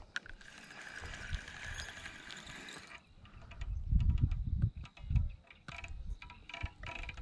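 Spinning reel being cranked to retrieve the line, its gears and line roller whirring with a faint whine. From about three seconds in there is a run of quick clicks, along with low thumps on the microphone.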